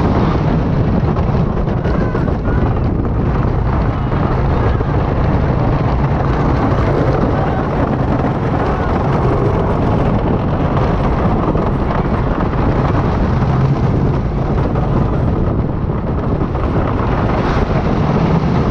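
Custom Coasters International wooden roller coaster train running at speed: a steady, loud rumble of the wheels on the wooden track, heard from the front of the train with wind buffeting the microphone.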